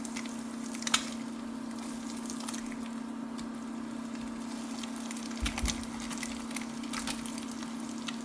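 An egg frying in bacon grease in a pan, with a faint crackling sizzle and the clicks and scrapes of a slotted turner working it, the sharpest click about a second in. A steady low hum runs underneath.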